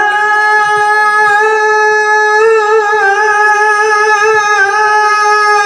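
A man's voice holding one long, slightly wavering note of a shalawat melody, sung into a microphone and heard through a loudspeaker.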